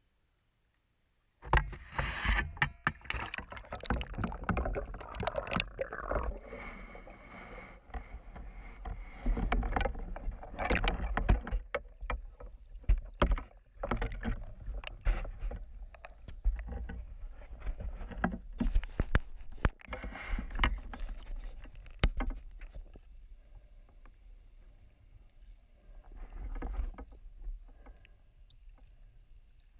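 Water splashing and sloshing around the camera as a snorkelling spearfisher moves through shallow water and goes under. It starts abruptly about a second and a half in, loud and choppy with many sharp knocks, and settles to a quieter underwater hiss with faint clicks over the last several seconds.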